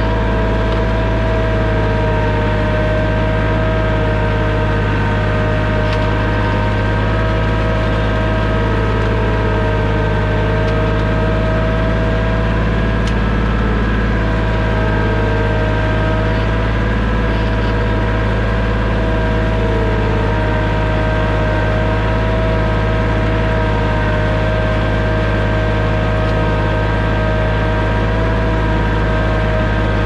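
Small tractor's engine running steadily under load as it drags a chained log, with a steady whine over the engine note.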